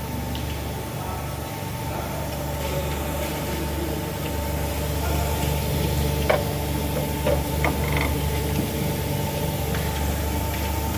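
Sesame tahini grinding machine running with a steady motor hum and a constant higher whine, with a few short clicks or knocks about halfway through.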